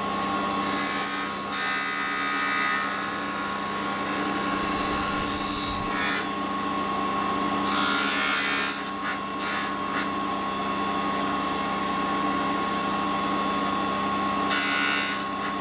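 Single-lip cutter grinder's spindle motor running with a steady whine while the front cutting edges of a high-speed steel end mill are ground against the wheel. The grinding comes in four spells of hissing as the cutter is fed in and backed off.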